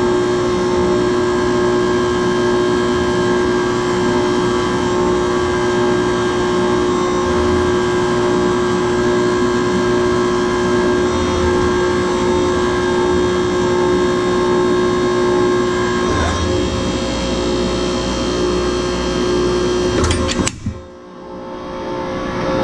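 Hydraulic forging press's power unit running with a steady, many-toned whine while the press punches a hot steel hammer billet. The sound shifts briefly about three-quarters of the way through, and near the end it cuts off suddenly.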